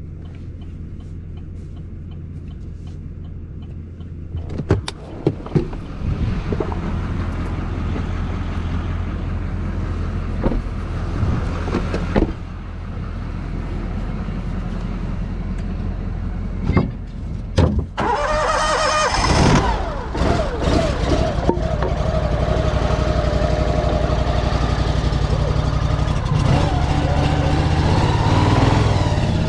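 A pickup truck's engine idling steadily, with a few sharp clunks and clicks. About eighteen seconds in, a second engine cranks and starts with a loud burst, then keeps running with a steady whining tone: the tracked shed mover being started.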